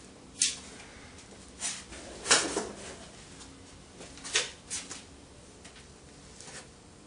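A handful of sharp knocks and clatters, about six, from a wooden arrow and bow being picked up and handled. The loudest comes about two and a half seconds in and rings briefly.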